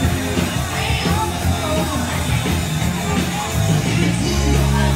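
Rock song playing, with a singer's voice over guitar and bass.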